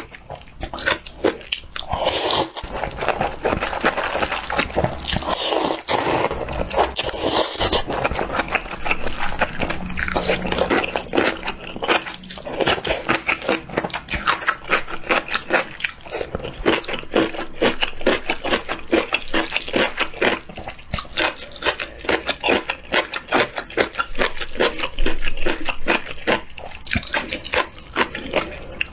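Close-miked eating of thin soup noodles in clear broth: several long, wet slurps of noodles between bouts of chewing, with many small mouth clicks and lip smacks.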